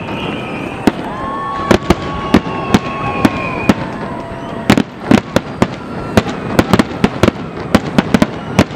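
Fireworks display: a dense, irregular barrage of sharp bangs from bursting shells, several a second, with long high tones drawn out over the bangs.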